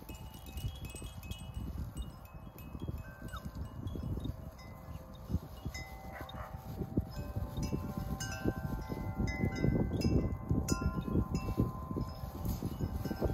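Wind chimes ringing irregularly, with many short overlapping tones at different pitches, over a steady low rumble.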